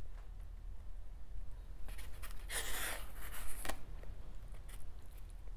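A metal utensil scraping and rubbing inside a styrofoam takeout container, with one longer, louder scrape about two and a half seconds in.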